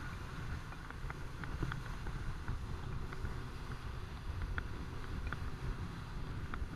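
Small open motorboat running at speed: a steady low rumble of motor, wind and water on the microphone, with scattered light ticks.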